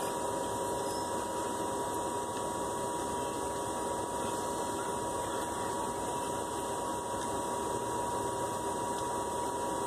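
Steady machine-like hum with a constant high tone running underneath, unchanging throughout.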